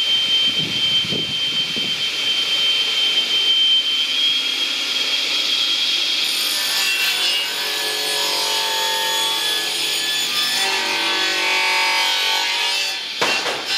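Homemade firewood circular saw spinning with a steady high whine, then sawing through a log from about six seconds in. Near the end there is a sharp knock.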